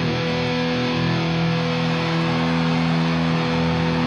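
Distorted electric guitar holding one sustained chord, ringing steadily without a break.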